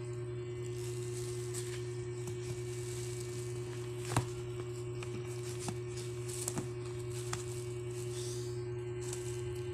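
A steady hum with a higher steady tone over it, and a few small taps and clicks, the sharpest about four seconds in, as a kitten paws at small objects on the floor.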